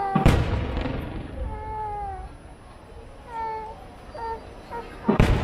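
Aerial firework shells bursting: a sharp bang about a quarter second in, trailing off in a long rolling rumble, and a second bang near the end.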